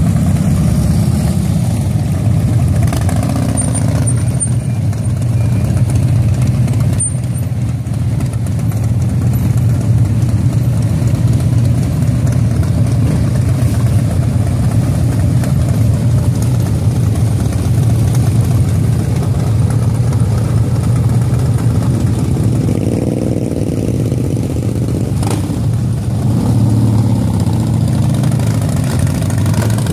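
A column of cruiser and touring motorcycles and trikes rumbling past at low speed, their engines making a steady low drone. One engine's note swells and falls a little after twenty seconds in, and again near the end.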